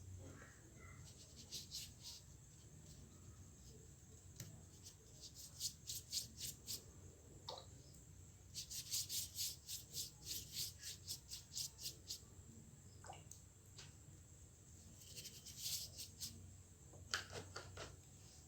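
Short scratchy strokes of a paintbrush on watercolour paper, coming in runs of about three or four strokes a second with pauses between, over a faint steady hum.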